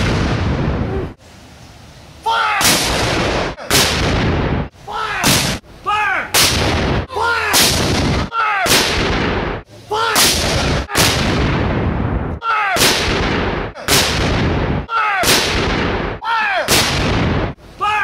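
Civil War field cannons firing, one loud boom after another: about a dozen shots, each with a long fading rumble. Each rumble is cut off abruptly as the next shot starts.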